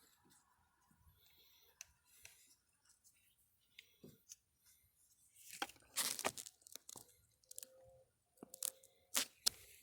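Small metal diesel-injector parts (spring, shims, needle) being handled and set down on a bench: scattered light clicks and clinks, with the loudest cluster about six seconds in and two sharp clicks near the end.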